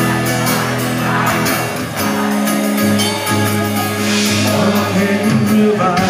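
Live rock band playing a song: electric guitars and bass over a steady beat, with singing.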